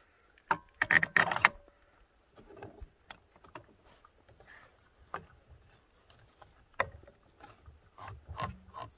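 Metal clinks and knocks from the Honda Dio's variator parts being handled and fitted onto the crankshaft, with a quick cluster of louder clacks about a second in. Scattered lighter clicks follow as the drive belt is worked over the pulleys by hand.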